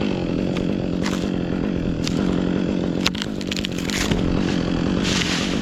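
Chainsaw engine idling steadily at one unchanging pitch, with several sharp knocks and a short crackling patch over it in the middle.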